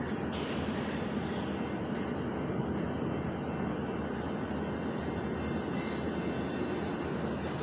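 Freight train of tank cars rolling past, a steady noise with no breaks.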